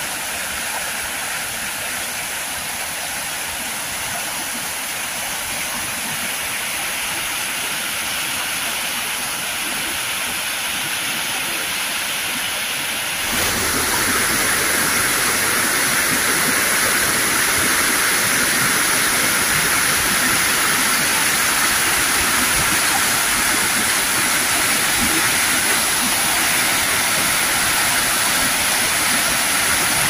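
Rushing water of a rocky stream pouring over rapids: a steady rush of noise that gets louder about halfway through and then holds.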